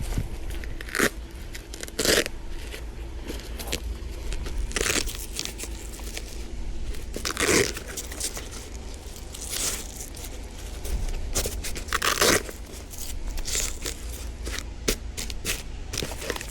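Fabric rack bag and its straps being handled and fastened onto an e-bike rack: rustling, scraping and short rasping rips, coming irregularly, a dozen or so times.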